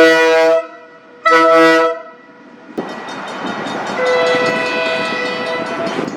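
Locomotive air horn sounding a chord of several tones: two loud short blasts, then, about three seconds in, a longer steady blast over the noise of the train.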